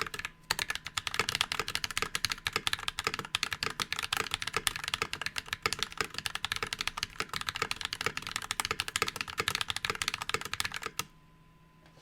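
Fast typing on a NovelKeys NK65 Entry Edition keyboard with Glorious Panda tactile switches in a polycarbonate case: a rapid, steady stream of key clacks that stops about a second before the end.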